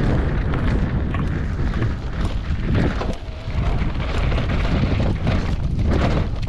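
Wind buffeting the camera microphone on a fast mountain bike descent, with the tyres rumbling over a dirt singletrack and the bike clattering over bumps. It eases briefly a little after three seconds.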